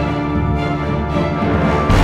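Background music of sustained held chords, with a deep bass note coming in near the end.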